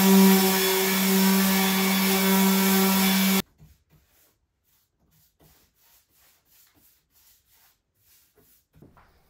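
Electric sander running with a steady hum as it lightly sands an old painted wooden tabletop; it cuts off abruptly about three and a half seconds in. After that come faint, regular strokes of a paintbrush laying primer on the table.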